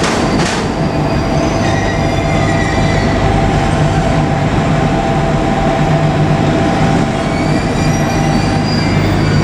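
JR Kyushu local train rolling slowly past on the rails, with a steady low hum and thin, high wheel squeal running over it.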